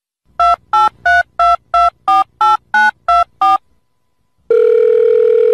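Touch-tone telephone keypad being dialled: ten quick two-note beeps, about three a second, keying in a phone number. After a short pause a steady ringing tone comes on the line near the end.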